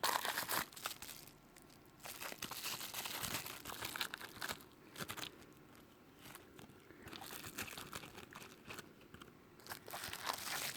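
Plastic packaging crinkling and rustling in handled bursts while a laser pen kit is unwrapped, with a few sharp clicks among them.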